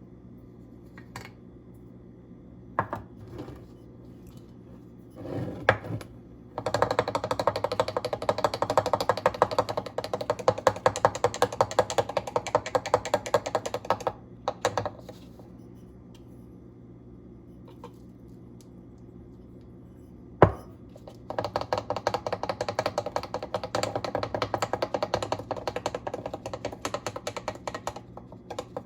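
Ground spices being mixed in a container with fast, even strokes in two long spells, with a few scattered knocks before the first and a single sharp click between them.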